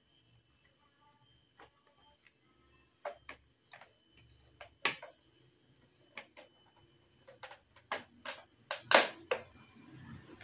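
Scattered clicks and knocks of motor-scooter parts being handled and fitted, with louder knocks about five seconds in and a quick cluster near nine seconds.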